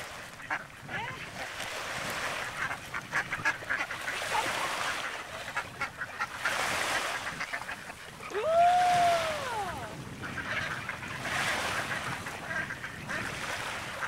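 Ducks calling as they head into the water, over small waves washing onto the shore. About eight and a half seconds in, one loud call rises and then falls in pitch and lasts about a second.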